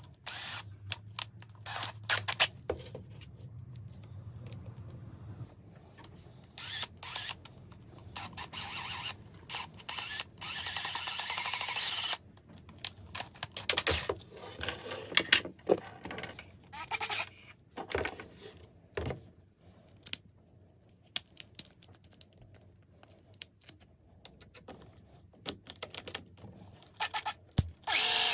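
Small drilling machine with mechanical clicks and clatter. The drill runs steadily for about four seconds near the middle, and sharp knocks and clicks come throughout.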